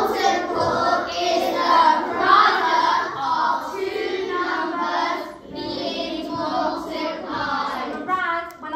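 A class of young children speaking together in unison, a chant-like chorus of many voices, with a short break about halfway through.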